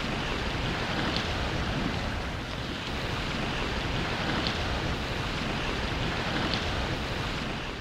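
Steady rushing of sea surf and wind, with three faint short high notes about 1, 4.5 and 6.5 seconds in.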